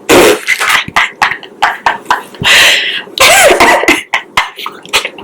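A woman laughing hard in loud, breathy bursts.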